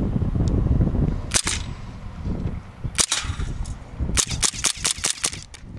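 Sig Sauer P226 X-Five CO2 blowback BB pistol firing sharp pops: two single shots, then a quick string of about seven shots that empties the magazine. Wind rumbles on the microphone in the first second.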